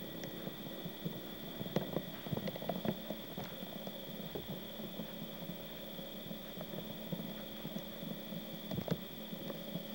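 A steady hum with hiss under it, and scattered faint clicks and knocks.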